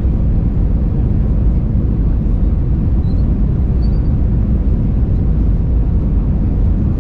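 Steady cabin noise inside an Airbus A319-112 on approach, heard from a window seat beside the wing: a deep, even rumble of the engines and the air rushing past the fuselage.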